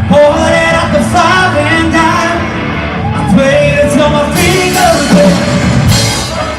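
A live band playing with a singer's voice over the music.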